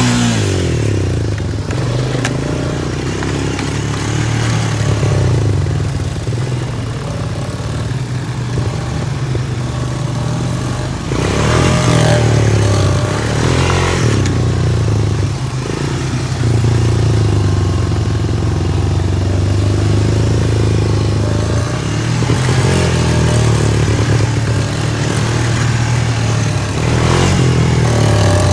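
ATV engine running under throttle while being ridden off-road, with the pitch rising and falling as it is revved, most clearly at the start and about twelve seconds in.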